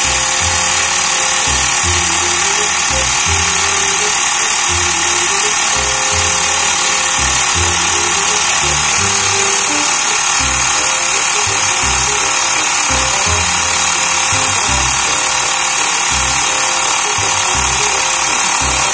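Xiaomi Mi portable electric air compressor running steadily with a high-pitched hum as it inflates a motorcycle's rear tyre toward a preset 30 psi. Background music plays under it.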